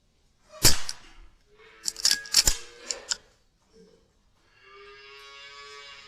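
Weihrauch HW100 .22 pre-charged air rifle firing, a single sharp crack under a second in, followed by a quick run of metallic clicks typical of working the side-lever to load the next pellet. Near the end comes a steady, drawn-out pitched call.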